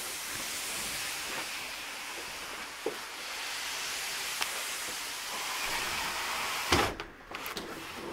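Large cardboard shipping box being pushed across a hard floor: a steady scraping hiss with a few small knocks, and one loud thump a little under seven seconds in.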